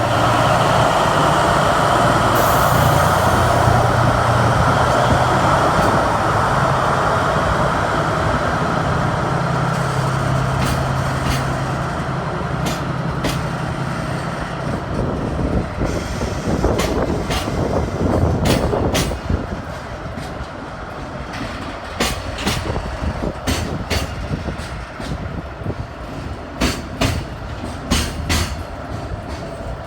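Freight train passing: a steady low drone for the first half, then a long run of rhythmic clicks as the wagons' wheels cross rail joints, clickety-clack.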